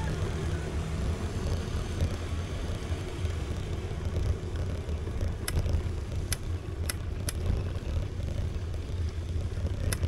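Steady low rumble of wind and road noise while riding a folding bicycle, with four short sharp clicks in quick succession a little past the middle.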